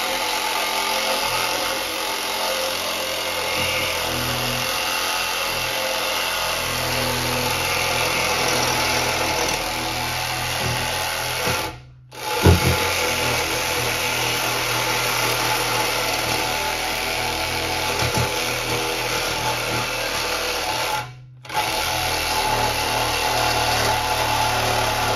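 Cordless reciprocating saw running steadily as it cuts through a steel exhaust pipe under a car. It breaks off briefly twice, with a sharp knock just after the first break.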